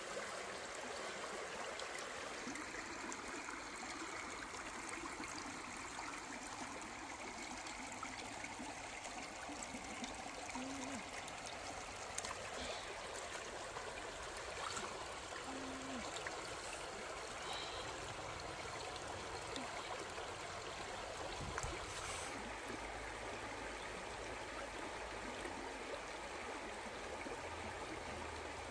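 Steady rush of flowing water, like a small forest stream, with a couple of faint clicks.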